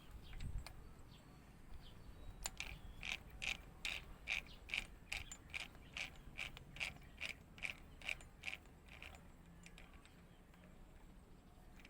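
Regular mechanical clicking from the homemade drill-driven mini lathe rig, about two and a half sharp ticks a second. The clicks start a couple of seconds in, run for about six seconds and slow slightly before stopping.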